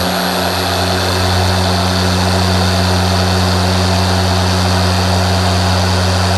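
Dual-action car polisher running at a steady speed with a constant hum and high whine, buffing fast correcting cream over a hood wet-sanded at 1500 grit.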